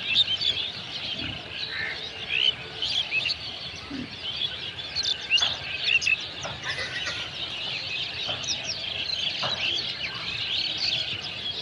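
A flock of small birds chirping continuously: many short, high calls overlapping throughout.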